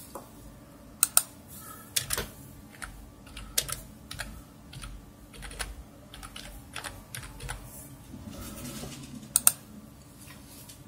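Typing on a computer keyboard: irregular keystrokes, with louder pairs of quick presses about a second in and again near the end.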